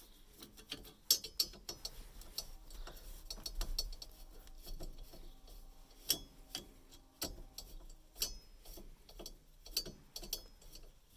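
Hand tool backing out the small screws that hold the horn pad on a 1967 Dodge Dart steering wheel: faint, irregular metallic clicks and ticks, a few sharper ones standing out.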